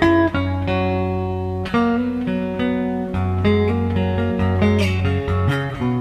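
Three-string resonator guitar with a dog-bowl resonator being played: plucked melody notes over a repeated low bass note, each note ringing on.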